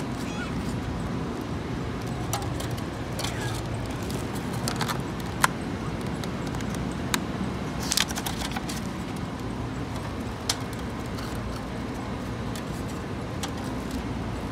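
Steady street background noise with a few short, sharp clicks and taps scattered through it.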